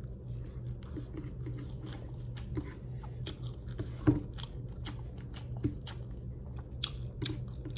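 A person chewing and eating close to the microphone: irregular small mouth clicks and crunches, with one sharper click about four seconds in.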